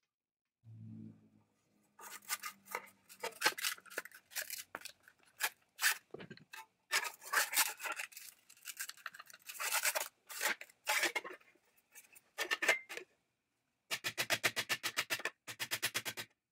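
Hammer tapping thin sheet metal over the edge of a steel anvil to fold it, in irregular runs of sharp metallic taps. A fast, even run of light taps comes near the end.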